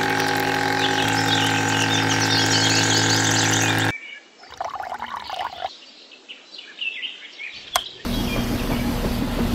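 Steady hum of a miniature water pump's small motor, with birds chirping over it. About four seconds in the hum cuts off sharply, leaving chirping and faint water pouring. Just after eight seconds another steady motor hum starts as the miniature cement mixer is switched on.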